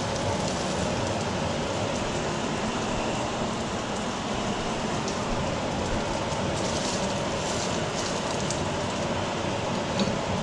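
Crappie nuggets, coated in egg, seasoned flour and breadcrumbs, deep-frying in hot oil: a steady, even sizzle with fine crackling that starts and cuts off suddenly.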